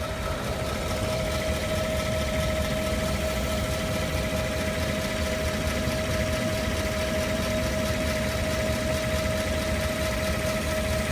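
5.3-litre V8 engine idling steadily, heard at the passenger-side wheel well, with a steady high whine over the running. The owner can only call it a different noise and cannot explain it.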